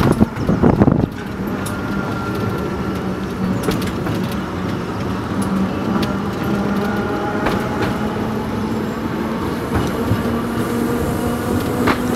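Narrow-gauge electric tram running along the track, heard from on board: a steady running rumble with a faint motor hum that rises slightly in pitch near the end, and occasional sharp clicks from the wheels and rails. A brief loud burst of noise comes in the first second.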